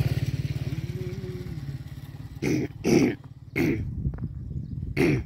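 A small motorcycle engine runs with a fast, even beat and grows quieter over the first two seconds, with a brief rise and fall in pitch about a second in. Over it come four short, loud, sharp calls, the loudest about three seconds in.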